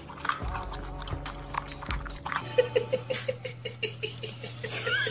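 Dog eating dry kibble from a bowl: irregular crisp crunches for the first two seconds or so.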